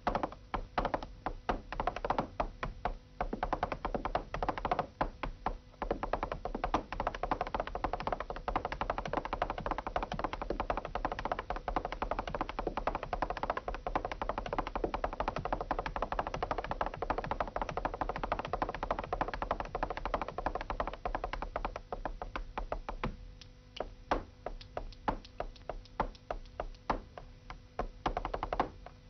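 Flamenco zapateado: heeled boots stamping and tapping on a hard floor in rapid runs, densest through the middle, slowing to single, separate stamps near the end.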